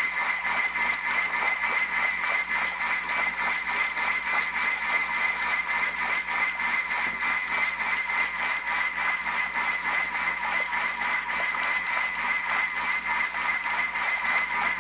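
Thermomix TM31 running steadily at speed 4 with the butterfly whisk fitted, whisking vinaigrette into an emulsion as olive oil drips in through the lid. A steady whir with a constant high whine.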